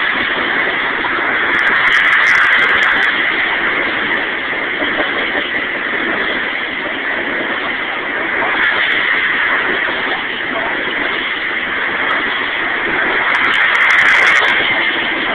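Freight train of tank cars rolling past close by: the steady, loud noise of steel wheels running on the rails, swelling slightly twice.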